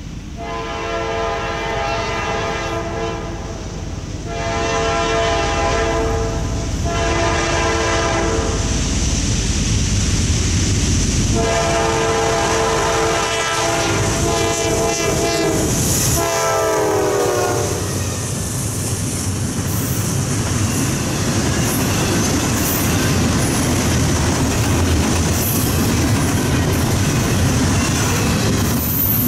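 Norfolk Southern GE diesel locomotive's horn blowing the grade-crossing signal: two long blasts, a short one and a final long one that drops in pitch as the locomotive passes. The locomotives and the double-stack intermodal cars then roll past with steady wheel clatter and rumble.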